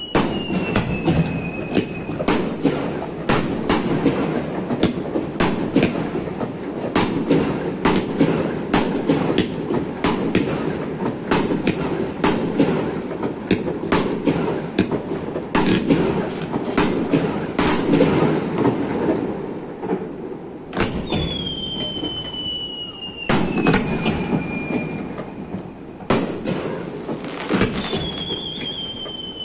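Fireworks display: a rapid string of bursting shells and crackling. A whistle falls in pitch near the start, again about three-quarters of the way through, and again near the end.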